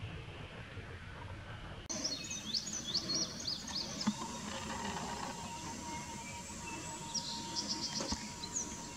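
Outdoor ambience: a low, even rumble for about two seconds, then an abrupt change to small birds chirping in short quick series, twice, over a steady thin high tone.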